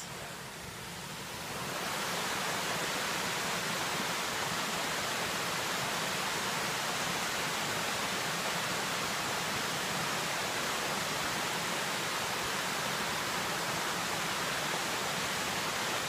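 Waterfall: a steady rush of falling water that swells about two seconds in and then holds even.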